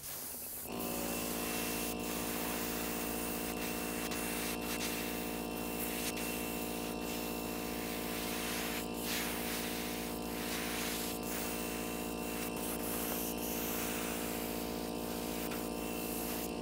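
Airbrush hissing in short, repeated passes as it sprays thinned turquoise color-shift paint onto a wooden lure. Under it, the airbrush's air compressor hums steadily, starting about a second in.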